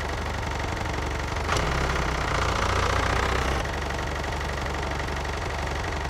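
Small motor of a miniature model tractor running with a steady hum. About a second and a half in there is a click, and the sound turns louder and harsher for about two seconds, then drops back to the steady hum.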